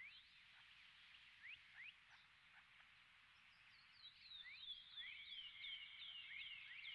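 Near silence with faint, short animal chirps, scattered at first and then a quick run of them over the last few seconds.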